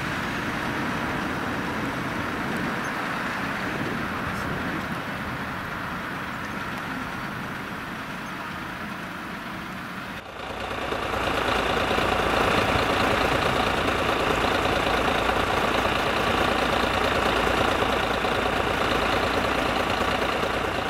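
Engines of ambulances running as they move slowly through a yard. About ten seconds in there is a sudden cut to a louder vehicle engine idling steadily close by.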